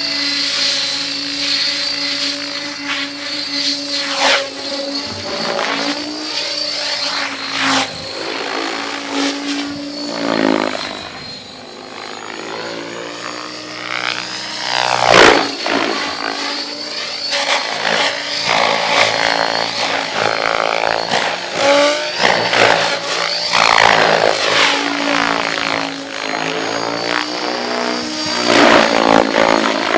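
Radio-controlled model helicopter in flight, a steady rotor and motor whine that repeatedly swoops up and down in pitch as it passes back and forth.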